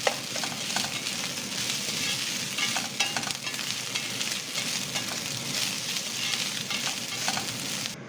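Fried rice with chicken, choy sum and egg sizzling in a hot pan as it is stir-fried, with a steady hiss and scattered scrapes and taps of the spatula. The sound cuts off suddenly near the end.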